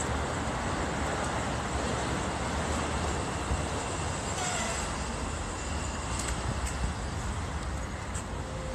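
Steady road traffic noise: an even hiss over a low rumble.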